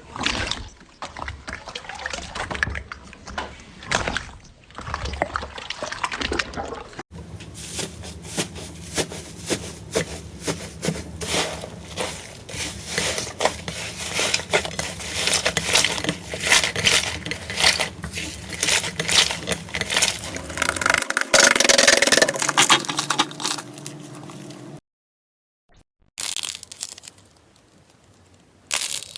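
Slime being squished and stretched by hand: sticky, wet clicks and crackles in quick succession. A cut about a quarter of the way in and a short gap near the end separate different clips.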